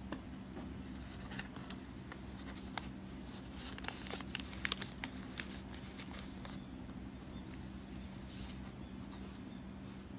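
Light rustling and scattered small clicks of a clear plastic sleeve and paper being handled, a drawing slid out of a display-folder pocket, over a steady low hum.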